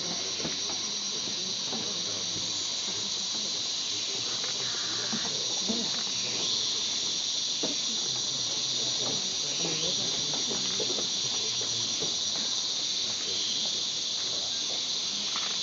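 Steady high-pitched drone of rainforest insects, an unbroken chorus that holds level throughout.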